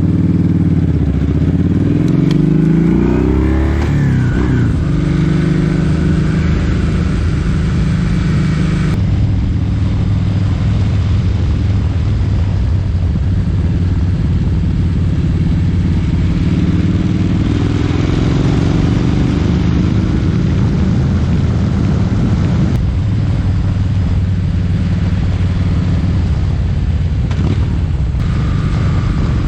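Kawasaki Vulcan 1700 Vaquero's V-twin engine running under way, its pitch rising and falling with throttle and gear changes, over a steady rush of wind and road noise.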